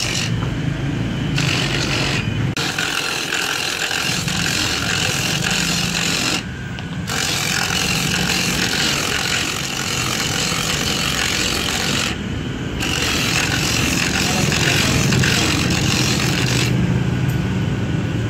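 Motorised coconut grater running, its spinning toothed drum shredding the flesh of a coconut half pressed against it: a steady motor hum under a loud rasping scrape. Twice the scraping drops out for about half a second while the hum carries on.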